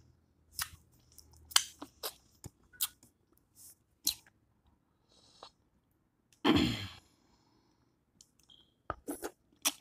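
Close-up eating sounds: wet chewing, lip smacks and the crackle of shrimp shells being peeled, as scattered sharp clicks. A single louder, longer noise comes about six and a half seconds in.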